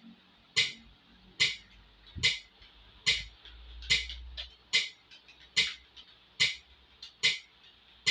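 Metronome ticking at a steady tempo, about 70 beats a minute, each tick a sharp click.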